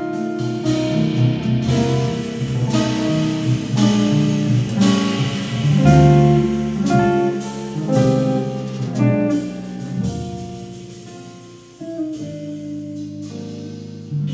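Live jazz quartet: hollow-body archtop guitar over upright bass, keyboard and drum kit, with drum and cymbal strokes. The playing thins out and fades about ten seconds in, then the guitar and band come back in with new notes near the end.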